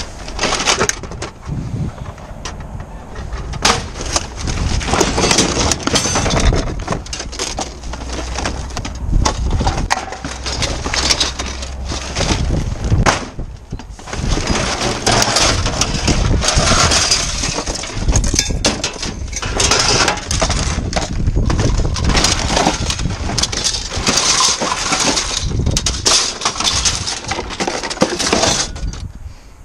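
Hands rummaging through a bin of plastic packaging and cardboard: plastic bags and wrappers crinkling and rustling, with many small clicks and clatters as items knock together.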